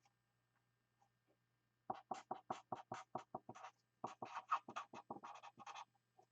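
Someone writing by hand: a quick run of short scratching strokes, starting about two seconds in and lasting about four seconds.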